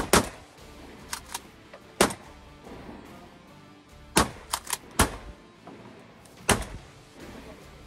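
A string of sharp clicks and knocks, some single and some in quick pairs or threes, about ten in all, over a faint steady background.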